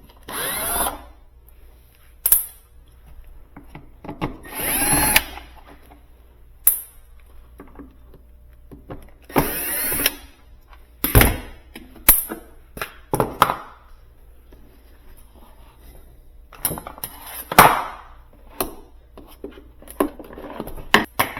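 A cordless power screwdriver runs in short spurts of about a second each, several times, backing screws out of a plastic pressure-washer housing. Between the runs come sharp clicks and knocks of screws and plastic parts being handled.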